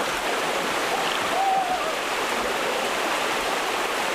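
Stream water running steadily. A short wavering tone sounds about a second and a half in.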